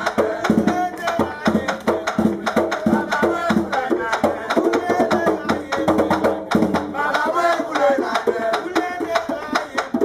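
Bèlè hand drum beaten in quick strokes, with a voice singing over the rhythm: the drum-and-song music that drives a danmyé fight.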